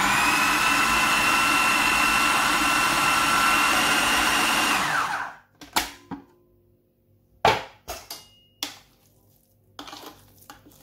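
Electric food chopper running steadily with a high whine as it grinds cooked chana dal and beef mince into a fine paste, then winding down after about five seconds. A few short knocks and clicks follow.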